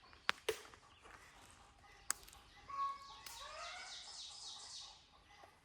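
Three sharp knocks in the first two seconds, then a chicken's long, pitched call lasting about two seconds.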